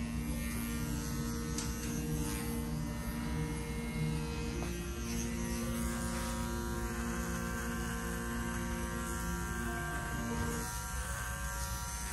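Electric barber clippers running with a steady hum.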